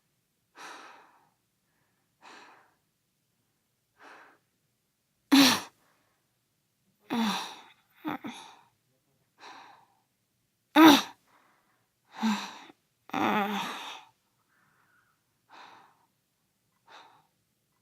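A boy breathing in and out and grunting, one short sound at a time with pauses between: soft breathy inhales and exhales, and several louder voiced grunts, the loudest about five and eleven seconds in.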